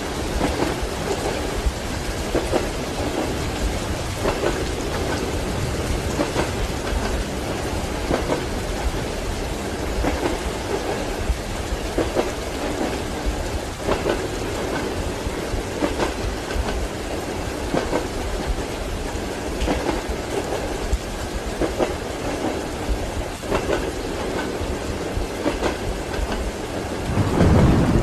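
Train wheels clacking over rail joints about every two seconds, under steady rain. A low rumble of thunder swells near the end.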